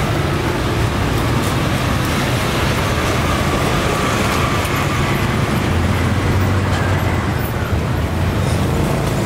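Steady street traffic noise: a continuous low engine rumble from motor vehicles on the road.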